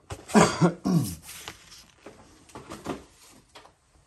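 A man clearing his throat and coughing twice in the first second or so, followed by a few faint knocks.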